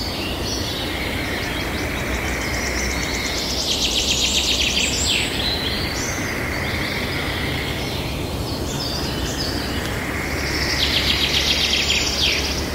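Birds singing over a steady hiss of outdoor ambience: scattered high chirps, with a fast trill of rapidly repeated notes about four seconds in and again near the end.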